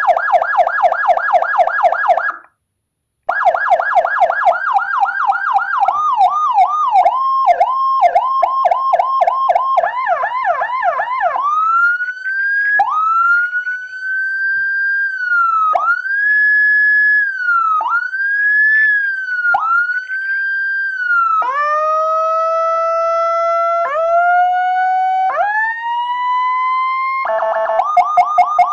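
Electronic siren module with Whelen HHS-style tones, loud through its amplifier, cycling through several siren patterns. It starts with a very fast warble that breaks off briefly, then slows to dipping swoops, then long rising-and-falling wails about every two seconds, then short rising sweeps. The fast warble returns near the end.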